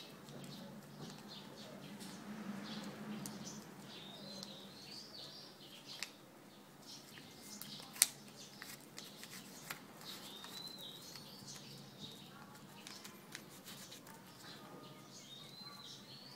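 Soft rustling and creasing of paper being folded and pressed flat by hand, with a single sharp tap about halfway through. Birds chirp briefly several times in the background.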